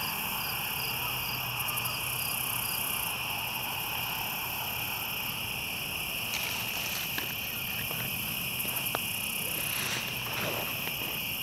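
Evening chorus of crickets and other insects: a steady high-pitched trilling that pulses in places, with a few faint clicks in the second half.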